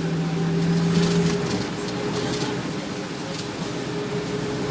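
Inside a 2000 Nova Bus LFS city bus under way: the Detroit Diesel Series 40 diesel engine and Allison B400R automatic transmission running. A steady low whine drops out about a second in, and a few short hisses occur.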